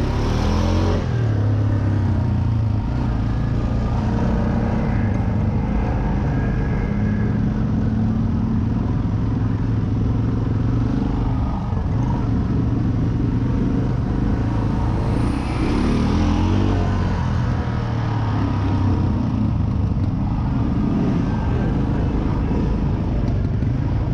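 Snorkeled Honda ATV engine running while riding along a dirt track, heard from on board. The engine pitch climbs as it speeds up right at the start and again about halfway through.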